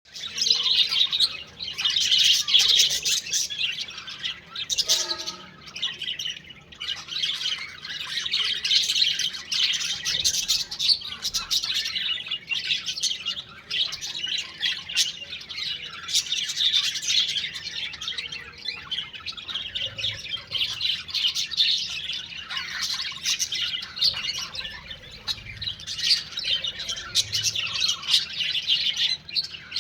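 A group of small pet parrots chirping and chattering continuously, many high calls overlapping without a break.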